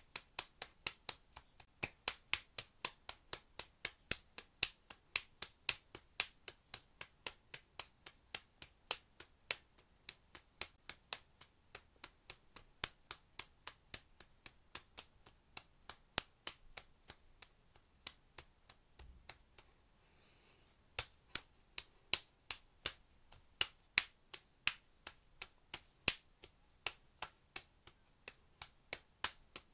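Open palms slapping bare cheeks again and again: sharp, even slaps at about three a second, with a break of about a second and a half about two-thirds through before they start again.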